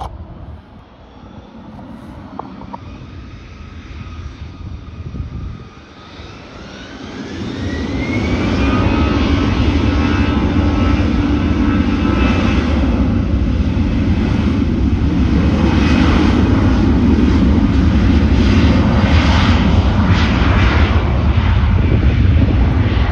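Airbus A321 jet engines spooling up for takeoff: a whine rises in pitch over a few seconds, then about eight seconds in the loud, steady noise of takeoff thrust comes in as the airliner accelerates down the runway.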